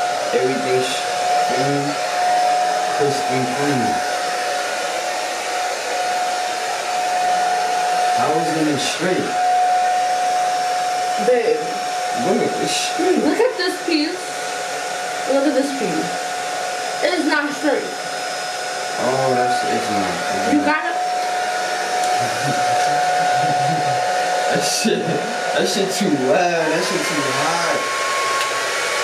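Hand-held hair dryer with a comb attachment running steadily, a rushing hiss with a constant whine. About 26 seconds in, the whine steps up to a higher pitch.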